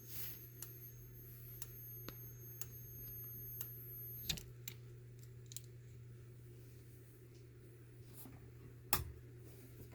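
Fire alarm strobe ticking faintly about once a second as it flashes, with a thin high whine. Both stop at a sharp click about four seconds in, and another sharp click comes near the end.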